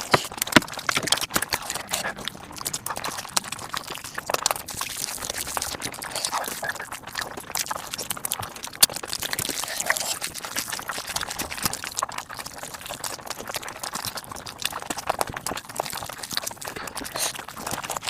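Mukbang eating sounds sped up about five times: rapid chewing, smacking and wet mouth noises that merge into a dense stream of small clicks.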